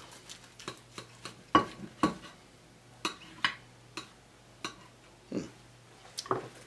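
A knife clicking and scraping against a ceramic baking dish as a slice of pastry-wrapped stuffed pork tenderloin is cut and lifted out, in a string of separate sharp taps. Near the end the knife is laid down on a wooden cutting board with a louder knock.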